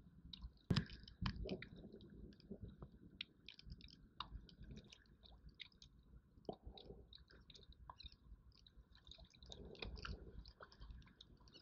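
Faint scattered clicking and rustling as hands handle fishing line and a lure, with a couple of louder knocks about a second in.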